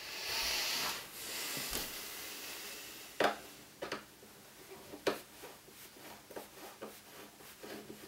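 A rustle, then a screwdriver working a woofer's mounting screw out of a speaker cabinet: a few sharp clicks, the loudest about three and five seconds in, and a run of small scraping ticks as the tip seats in and turns the screw.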